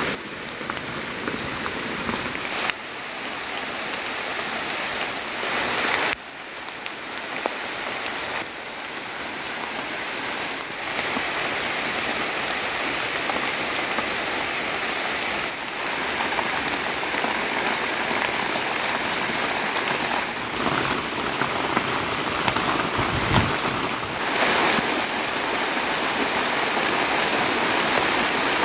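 Heavy rain falling steadily, a dense hiss of drops. The level drops abruptly twice in the first several seconds, then holds steady.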